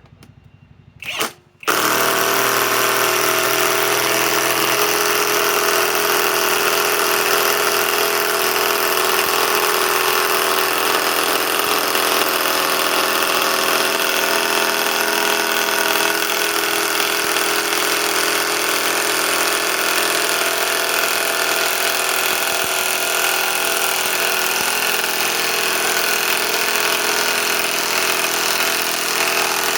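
Hercules HCB84B2 compact 1/2-inch cordless impact wrench on speed 3, hammering steadily as it drives a 6-inch lag screw into pre-drilled wood. A short blip of the trigger about a second in, then a continuous run to the end.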